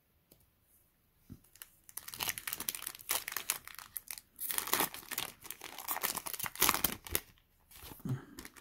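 Foil booster pack wrapper being torn open and crinkled: crackling tearing and crinkling starting about two seconds in and lasting about five seconds.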